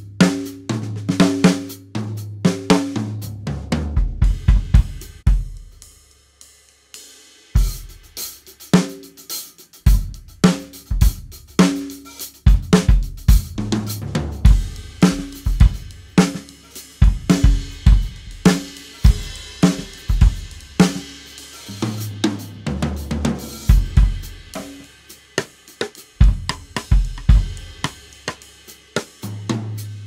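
A 1970s Ludwig drum kit played solo: snare, bass drum, toms and cymbals in grooves and fills, the toms ringing with a clear pitch. The playing breaks off briefly about six seconds in, then picks up again.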